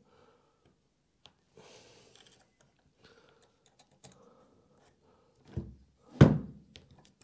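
Faint clicks and rustling of a hex key working the carriage's end-plate bolts, then two dull thumps about half a second apart as the metal carriage assembly is shifted on the bench.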